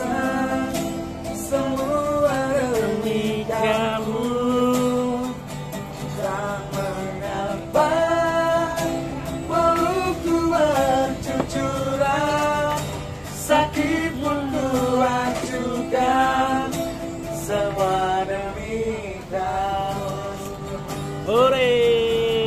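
A male street busker sings a ballad melody with long held, sliding notes over a strummed acoustic guitar, and a second voice sings along. Near the end a loud high vocal note slides steeply down.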